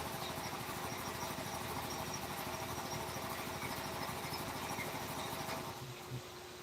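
A small motor running steadily, stopping near the end.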